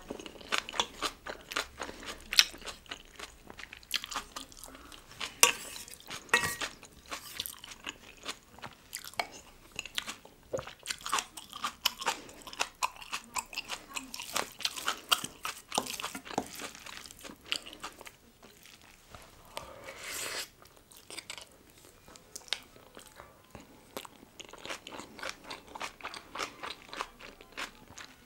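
A person eating close to the microphone: steady chewing with many crisp crunches and bites, easing off for a few seconds a little past halfway before picking up again.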